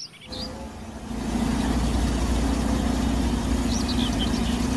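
Diesel engine of a large Caterpillar crawler bulldozer running steadily as it pushes earth, growing louder about a second in. A few faint high chirps come around four seconds in.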